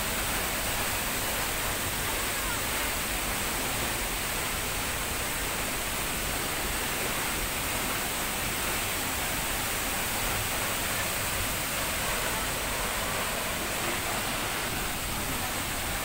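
Steady rushing of a waterfall and the rocky, swollen brown river rapids below it.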